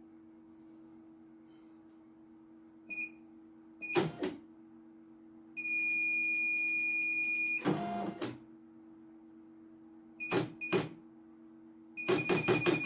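CNY portable computerized embroidery machine beeping as its panel buttons are pressed: several short beeps and one long beep of about two seconds. Short whirring runs of the embroidery carriage moving the hoop come in between, with a quick rattling series near the end, over a steady low hum.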